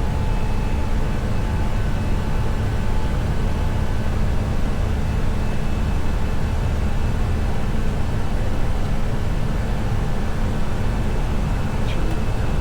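Steady flight-deck noise of an Airbus A320 in climb: a constant rush of airflow and air conditioning over a low drone, with a few faint steady tones.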